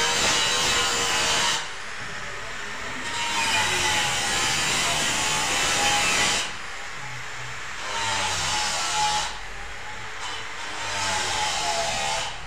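A hand tool scraping and carving a gypsum plaster cornice, cutting in a decorative border. It comes as four long rasping strokes with short pauses between them.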